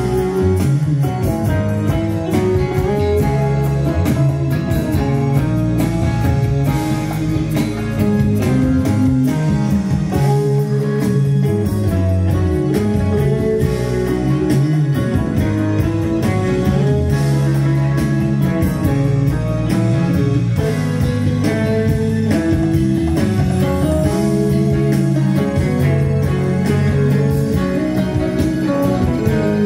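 Guitar-led recorded music played back loud and steady over hi-fi floor-standing loudspeakers with plasma tweeters.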